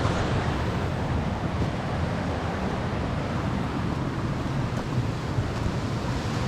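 Steady rushing of a flowing creek and small waterfalls, with wind buffeting the microphone in uneven low rumbles.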